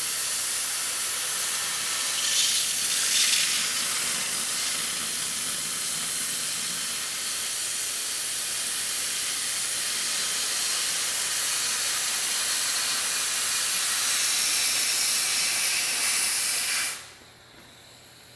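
Victor pattern-tracing oxy-fuel cutting torch burning through 5/8-inch steel plate: a steady, loud hiss of the oxygen jet at the tip. The hiss cuts off abruptly near the end.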